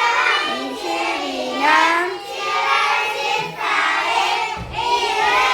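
Young children singing together in high voices.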